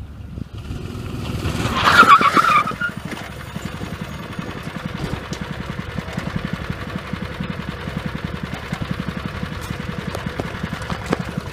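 Go-kart with a Honda GX160 single-cylinder four-stroke engine running at full throttle in a flyby, swelling to its loudest as it passes about two seconds in, then running on steadily.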